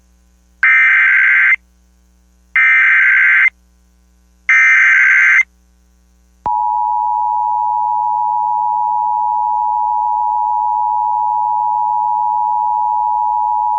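Emergency Alert System SAME header: three bursts of warbling data tones, each about a second long and a second apart. About six and a half seconds in, the two-tone EAS attention signal starts and holds steady. It heralds a severe thunderstorm warning relayed over an FM radio stream.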